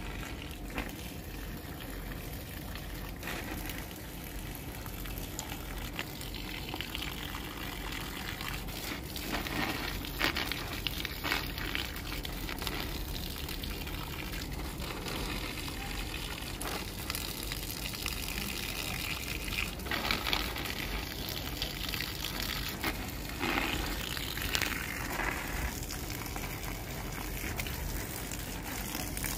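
Water spraying from a garden hose onto potted plants and soil: a steady rushing hiss that grows louder at times as the stream strikes leaves and pots.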